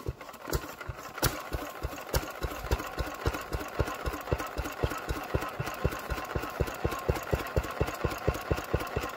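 Small air-cooled single-cylinder stationary engine catching just after being turned over by hand and running with a steady, evenly spaced beat of firing strokes.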